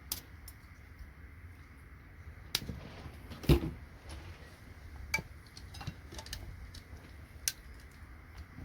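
Scattered clicks and knocks of small plastic and metal parts being handled as a computer connector is pried apart, with the loudest knock about three and a half seconds in.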